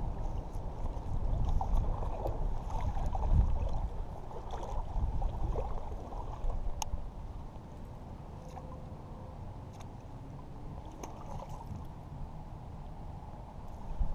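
Shallow river water lapping and gurgling at the shoreline, with a low wind rumble, louder in the first half. A single sharp click comes about seven seconds in.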